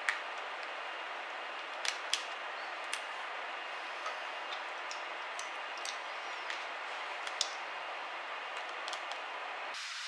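Scattered light clicks and taps, about a dozen, from hands handling a laptop's battery, cable connector and internal parts, over a steady background hiss.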